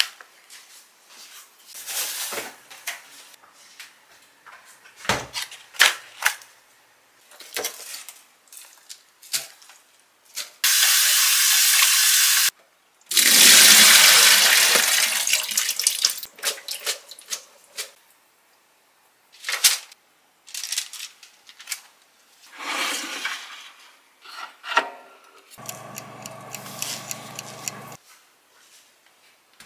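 Kitchen tap running into a stainless sink for a few seconds midway while a plastic colander is rinsed, with handling knocks and rustles of groceries and containers being set down around it. Near the end, a steady hum for a couple of seconds.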